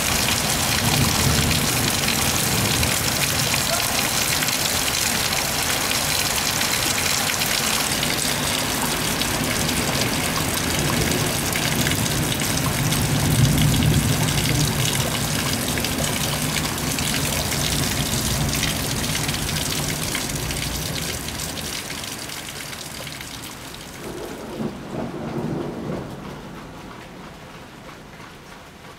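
Heavy rain pouring down on a street, a steady dense hiss, with deep rolling thunder that rumbles loudest about halfway through. Near the end the downpour fades to a much quieter patter, with a couple of short louder sounds as it drops.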